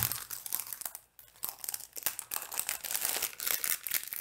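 Plastic packaging crinkling and crackling in the hands as it is worked at to open a wrapped sewing notions bag, in irregular bursts with a brief lull about a second in.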